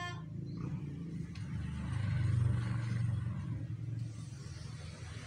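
Low rumble of a passing vehicle, swelling to its loudest about two to three seconds in and then easing off.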